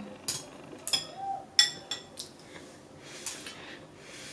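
Chopsticks tapping against ceramic bowls during a meal: a few light clinks with a short ring in the first two seconds, then softer eating noises with noodles slurped near the end.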